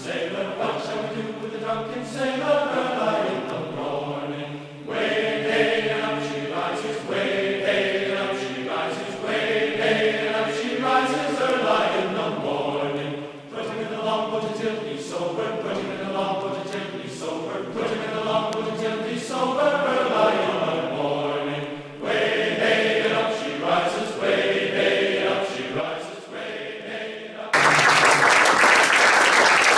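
A group of voices singing together in held, changing notes. Near the end the singing stops and audience applause takes over.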